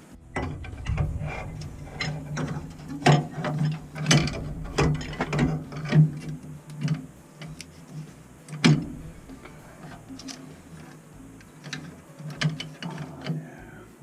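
Irregular metallic clicks and clanks of hand tools and metal fittings being worked on a boiler's circulator pump, over a steady low hum.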